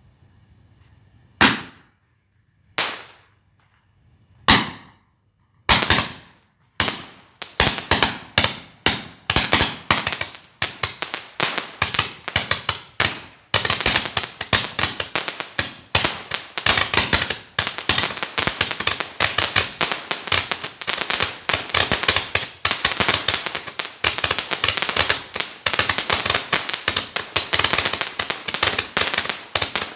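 Firecrackers going off. A few separate sharp bangs a second or so apart come first, then about seven seconds in they speed up into a dense, continuous run of rapid cracks.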